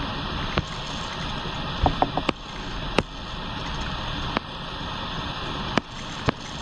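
Steady background hiss with sharp clicks scattered through it, four in quick succession about two seconds in. The clicks are taps on a tablet or computer as the annotated PDF page is zoomed out.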